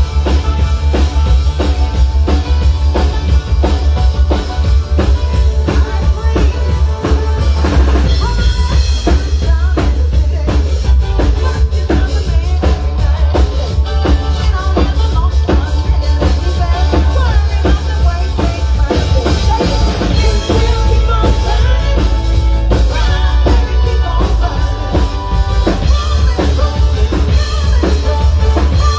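Loud live band music with a heavy bass line and a steady drum-kit beat.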